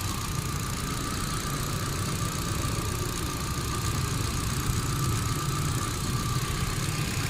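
Hyundai Accent engine idling steadily with a constant low rumble and a faint steady whine, running after its misfire was repaired and the trouble codes cleared.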